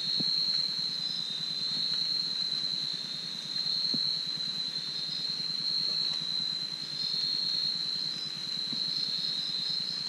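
Night insect chorus: a steady high-pitched trill that wavers slightly, over a low background hiss, with a couple of faint taps.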